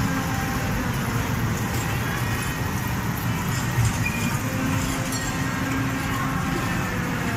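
Steady din of a busy indoor amusement hall, with a children's mini train ride running past and a few faint held tones.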